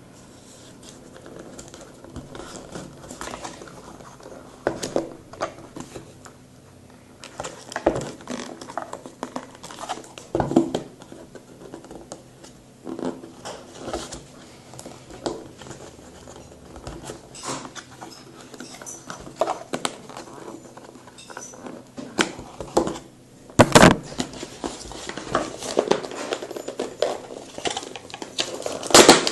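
Phone box and packaging being handled and opened: irregular rustling, clicks and taps of cardboard and plastic, with a sharp knock about 24 seconds in and another near the end.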